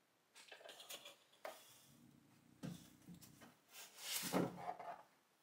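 Polystyrene foam packing and cardboard rubbing and scraping inside a shipping box as packaging is worked loose and pulled out. The scrapes come irregularly, with the loudest about four seconds in.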